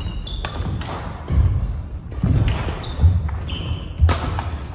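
Badminton singles rally on a wooden gym floor: sharp racket strikes on the shuttlecock about once a second, with rubber-soled shoes squeaking and heavy footfalls thudding on the boards.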